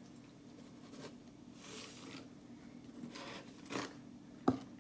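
Salt sprinkled from a canister over a pot in a few short, hissing bursts, then a sharp knock near the end as the canister is put down.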